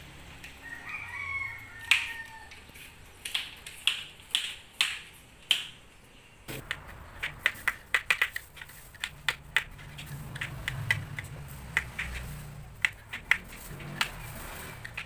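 Handheld vegetable peelers scraping the skin off green papayas: a run of quick, sharp scraping strokes, irregular and coming faster in the second half, with a short pause about six seconds in.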